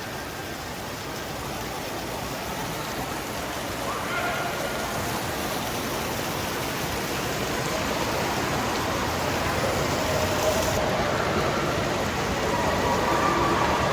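Indoor water park ambience: a steady rush of splashing and falling water with faint, scattered voices of swimmers, growing gradually louder.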